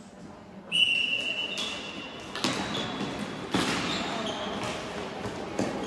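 Floorball game play in a large echoing sports hall. Sharp knocks of sticks and the ball ring out three times, with short high squeaks from shoes on the court floor. A high, steady shrill tone starts about a second in and lasts about a second and a half.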